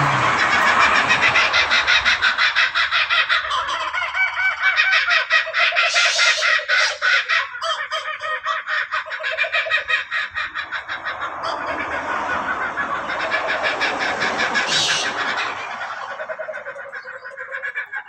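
Several laughing kookaburras calling together in a loud chorus of rapid, repeated laughing hoots. It eases off about ten seconds in, builds again, and fades toward the end.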